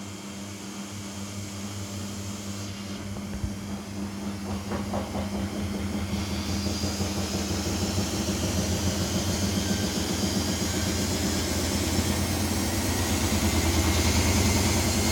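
Samsung P1271 front-loading washing machine spinning up into its spin cycle: the drum and motor hum grow steadily louder while a faint high motor whine slowly rises in pitch. A single knock comes about three and a half seconds in.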